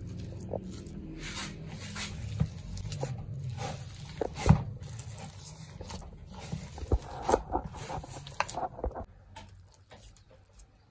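Hands squeezing and kneading margarine into flour dough in a plastic bowl: irregular squishes and taps, with one sharper knock about halfway. A low drone runs underneath and fades out near the end.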